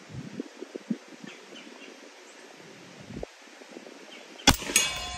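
A single .45 ACP shot from a Reising Model 50 submachine gun fired on semi-auto, about four and a half seconds in, after quiet outdoor air. A ringing tone follows the shot and carries on.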